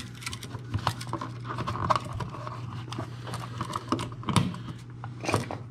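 Wired duplex receptacle being pushed by hand into a plastic old-work box: irregular small clicks and scrapes of the outlet, its wires and the box, over a steady low hum.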